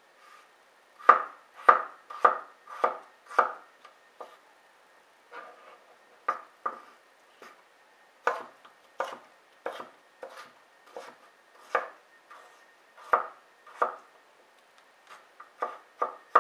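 Kitchen knife dicing raw potato on a wooden cutting board: sharp knocks of the blade going through the potato onto the board, unevenly spaced at about one or two a second, with a quick, loud run of five in the first few seconds.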